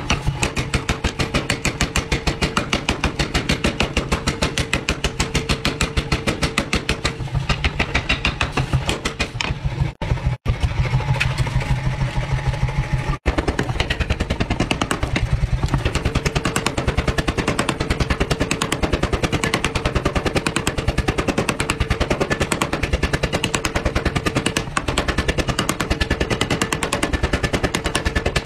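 Power hammer pounding a red-hot steel bar, a fast, even train of heavy blows several a second, over a steady machine hum. The blows break off for a moment twice near the middle.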